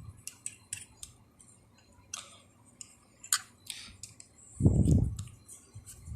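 Light metallic clicks and clinks of hand tools and small metal parts being handled, scattered and irregular, with one louder dull thump about four and a half seconds in.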